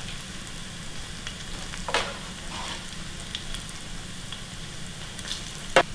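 Thin-shaved shallot rings, dusted in cornstarch, frying in a skillet of hot oil: a steady sizzle with fine crackling. Two sharp clicks, about two seconds in and near the end.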